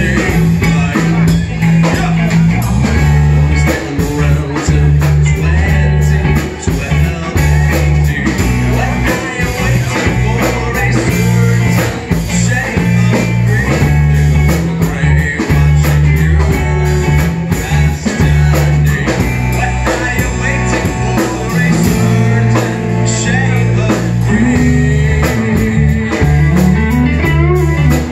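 Live band playing a song: electric bass and electric guitar over a drum kit keeping a steady beat, with a male vocalist singing into a microphone.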